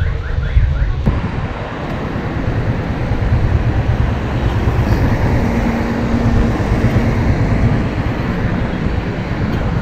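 Motorcycle riding in city traffic: wind rushing and rumbling on the bike-mounted microphone over the engine and road noise, steady throughout.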